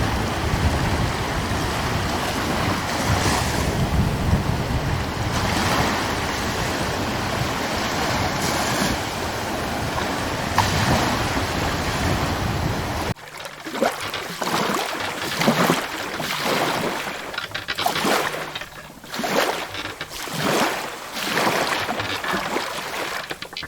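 Ocean surf washing in steadily, with wind rumbling on the microphone. About halfway through it cuts suddenly to a quieter recording of small waves lapping and splashing in short, irregular washes.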